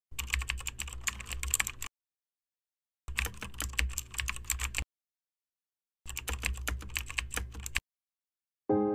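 Computer keyboard typing sound, in three bursts of rapid key clicks of about two seconds each with dead silence between. Piano music begins right at the end.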